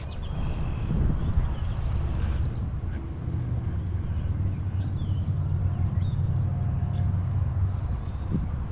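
Outdoor ambience: a steady low rumble, with a few faint bird chirps above it.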